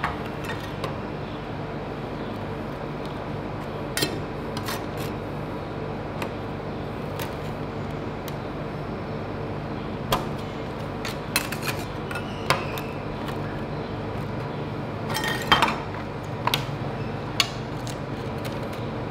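Metal spatulas and a small knife chopping chocolate candies on a frosted ice-cream cold plate: scattered sharp clicks and taps of steel striking the plate, with a quick cluster about three-quarters of the way through. A steady hum runs underneath.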